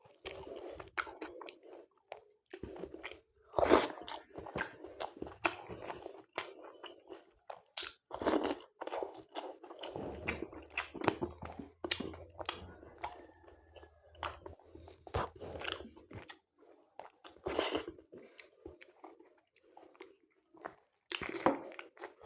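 Close-miked chewing with sharp, irregular crunches as raw salad vegetables are bitten and chewed.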